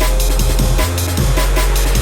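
Electronic background music with a fast drum beat over a heavy, sustained bass line.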